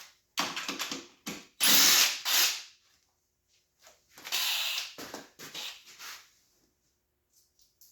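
Handheld power tool run in several short bursts of under a second each, with a pause of over a second in the middle, backing out bolts during the teardown of a KTM 125sx two-stroke dirt bike.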